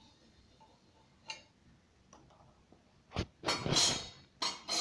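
A few sharp metal clinks and a short rattle about three seconds in, with another clink and rattle near the end: a steel slotted frying spoon being handled and set down by the pan.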